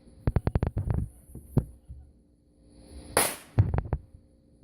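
Black Cat firecrackers going off in a rapid run of sharp cracks, about eight within the first second and a couple more shortly after. About three seconds in there is a brief rushing noise, followed by another quick cluster of cracks.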